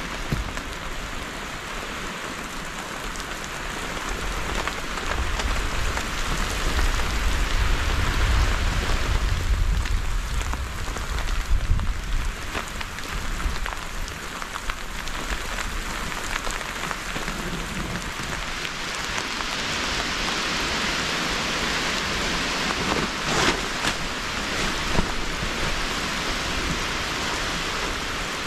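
Steady rain falling through the forest, with a deep low rumble that swells and fades through the first half and a sharp snap about two-thirds of the way in.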